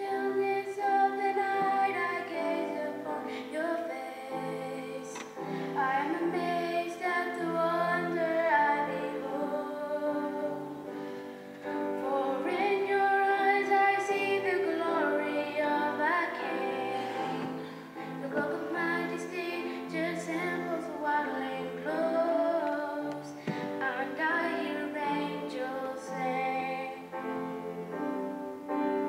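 Children's school choir singing a song in a church, heard from among the audience.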